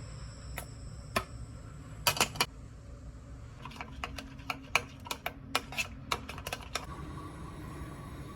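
Irregular light clicks, taps and knocks of kitchen utensils and dishes being handled, including three quick knocks about two seconds in.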